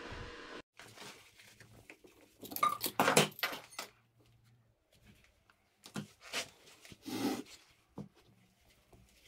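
Gritty scraping and crunching of casting sand as a metal can used as a sprue cup is twisted and lifted off a sand mould and the sand around it is handled, in several short irregular bursts, the loudest about three seconds in.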